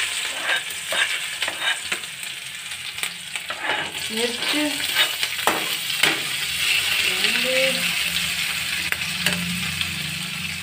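Chopped ginger, garlic and green chillies sizzling in hot oil in a kadhai, with a metal spatula scraping and clicking against the pan as they are stirred.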